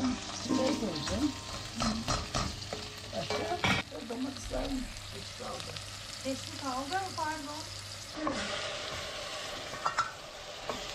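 A wooden spoon stirs and scrapes chopped onions, green peppers and ground meat frying in a stainless steel pot, with sizzling and a few sharp knocks of the spoon against the pot. The sizzling grows louder about eight seconds in.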